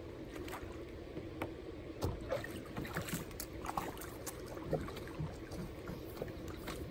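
Native Titan 10.5 kayak being hauled out of shallow water on its Boonedox landing-gear wheels: water sloshing and dripping off the hull, with scattered knocks and splashes as it rolls up the bank, over a steady low hum.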